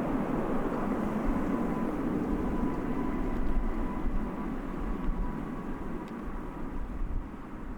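Aircraft wing-tip wake vortices rumbling and swishing after a low pass, slowly fading; a faint steady whine sits over the rumble for a few seconds midway.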